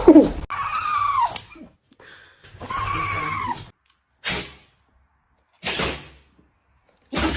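Dog sneezing: three short, sharp sneezes about a second and a half apart in the second half. Before them come two drawn-out high vocal sounds, each rising and then falling in pitch.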